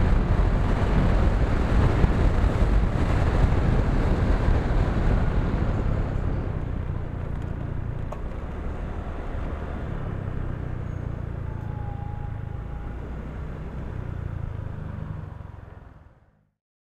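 Motorcycle on the move: wind buffeting the microphone over the engine and road noise. It gets quieter about six seconds in, then fades out to silence near the end.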